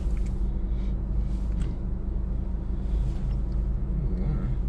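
Low steady hum of a Honda car's idling engine, heard inside the closed cabin, with faint rustles of movement on the seats.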